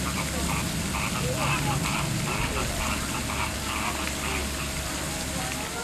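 Indistinct, faint voices over a steady low hum.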